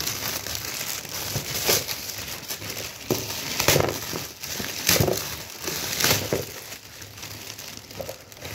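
Metallic foil gift wrap crinkling and crackling as hands pull it off a shoebox, with several louder crackling surges along the way.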